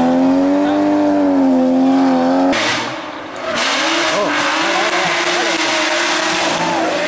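BMW rally car engines at full throttle: a BMW E30 pulling hard away through a bend, then, after a sudden cut about two and a half seconds in, a BMW E36 rally car approaching with a steady engine note.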